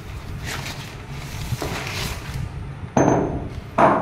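Plastic packing crinkling as a steel tractor front pulley is pulled out of it, then two sharp metallic knocks with a brief ring, under a second apart near the end, as the pulley is set down on a tiled floor.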